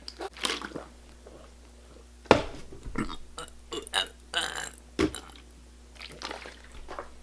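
A person drinking water from a plastic bottle and burping. It is a string of short, separate sounds, the loudest coming suddenly about two seconds in.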